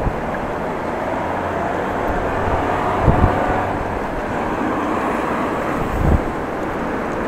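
Strong wind rushing over an action camera's microphone while cycling into a headwind, mixed with the steady noise of road traffic. Low gusts buffet the microphone about three and six seconds in.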